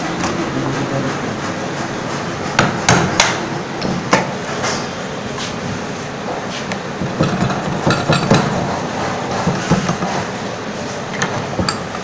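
Irregular sharp knocks of hammer or mallet blows on wood, some single and some in quick clusters, over a steady workshop background.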